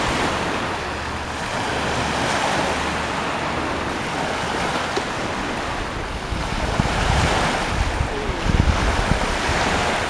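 Black Sea waves washing onto the shore, a steady rush of surf, with wind buffeting the microphone in low gusts that grow stronger in the second half.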